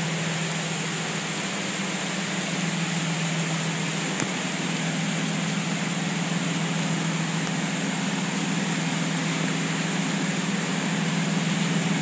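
Water turbine of a small community hydroelectric plant running: a steady low hum under an even rushing noise, growing slightly louder near the end.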